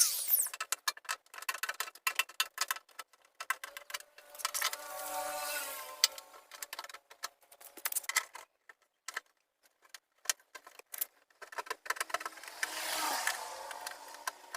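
Tools and metal parts being handled: scattered sharp clicks and light metallic rattles, with a soft whirring tone twice, about four seconds in and again near the end.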